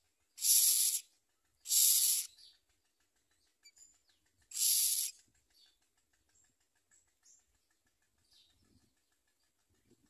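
Common myna nestlings giving three harsh, hissing begging calls, each about half a second long, the first two a second apart and the third about three seconds later.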